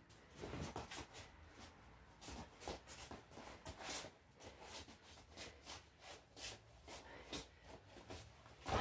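Wrestlers' feet scuffing and shuffling on a vinyl wrestling mat during a standing tie-up, with irregular soft scuffs and light thumps of bodies and hands, growing louder right at the end.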